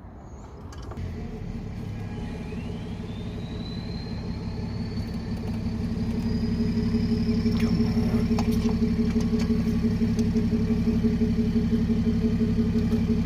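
BMW E36 engine running at a steady speed through an exhaust with a blown muffler, growing louder over the first several seconds. A faint whine rises in pitch about two seconds in and then holds.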